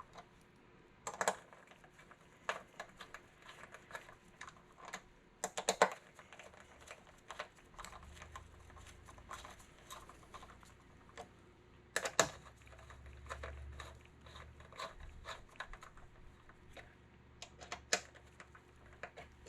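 Small metallic clicks and taps of a hand tool on the hex bolts of a motorcycle gas cap as they are snugged down one by one, with a few sharper clacks now and then.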